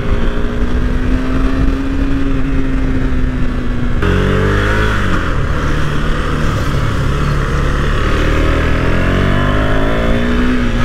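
KTM Duke 390's single-cylinder engine running at a steady cruise with wind rush. Its note changes abruptly about four seconds in, then drops as the bike slows and rises again as it accelerates.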